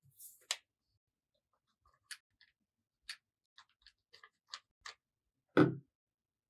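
Scattered light clicks and ticks as a hot glue gun is worked against a paper cut-out, then one louder thump about five and a half seconds in as the glue gun is set down on the table.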